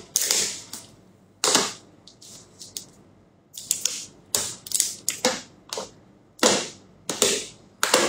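Water being gulped from a plastic bottle in one long drink: about a dozen short, sharp sounds, one every half second to a second.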